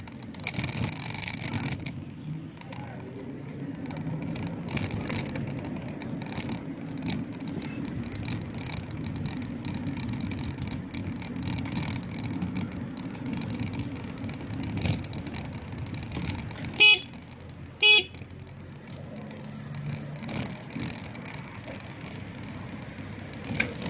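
City street traffic: a steady noise of passing cars and scooters, with two short vehicle horn toots about a second apart, about two-thirds of the way through.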